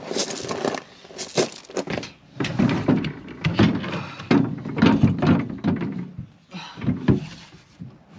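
Plastic waste water tank knocking and scraping against the steel spare-wheel cradle as it is lifted and settled into place: an irregular series of clunks and scrapes.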